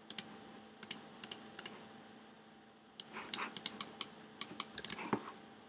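Clicks of a computer keyboard and mouse: a few single clicks in the first two seconds, then a quick run of keystrokes about three to five seconds in.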